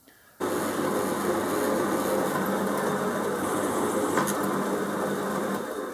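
Drill press running with a 5 mm twist drill cutting into a metal block, drilling the tapping hole for a 6 mm thread: a steady machine hum with the noise of the cut. It starts abruptly about half a second in and eases off near the end.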